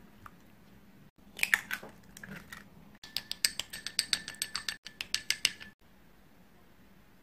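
A wooden spoon beating an egg in a small glass bowl, making a fast, even run of clinks against the glass, about eight a second, with a faint ringing from the bowl. A few louder scrapes and clinks of utensil on glass come before it.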